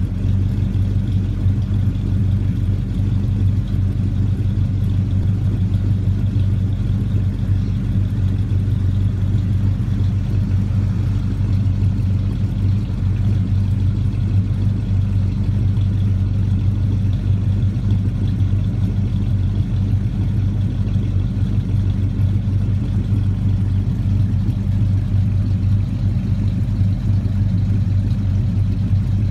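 Old Ford F100 pickup engine idling steadily through its exhaust at a constant low speed, with no revving.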